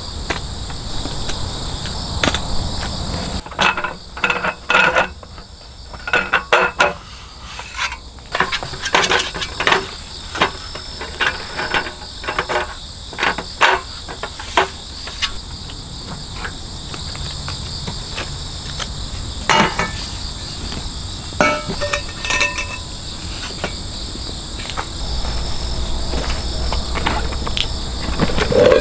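Insects chirping in a steady high trill, with irregular knocks and clatter: many in quick runs over the first half, a few more around twenty seconds in.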